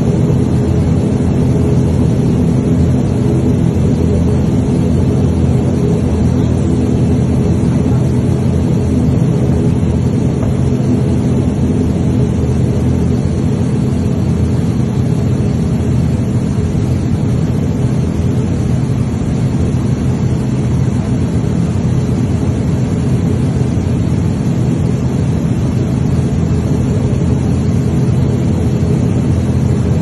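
Turboprop airliner's engine and spinning propeller droning steadily, heard from inside the passenger cabin. The pitch holds steady throughout.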